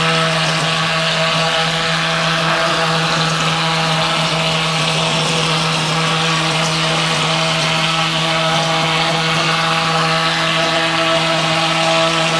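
G 54 plaster spraying machine running steadily while plaster is sprayed onto a wall, a constant machine hum with several pitched tones under an even hiss of air and plaster leaving the spray gun.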